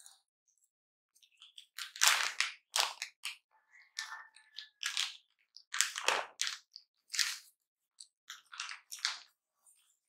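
Crisp crunching of a raw cucumber slice being bitten and chewed, then crinkling of the plastic tortilla bag as a tortilla is pulled out: a run of short, sharp crackles.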